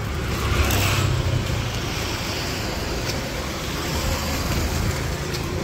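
City street traffic: engines rumbling and tyres on the road, with a vehicle passing close and louder about a second in.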